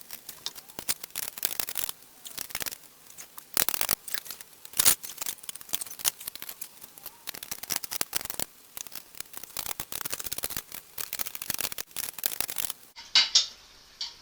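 Nuts being run down and tightened on threaded bar to bolt an anvil onto its wooden stand: dense, irregular clicking and clattering of metal hardware and tools that starts and stops abruptly.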